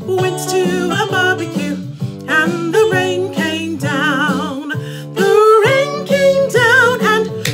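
A woman singing a blues singalong song over instrumental accompaniment, with vibrato on the held notes.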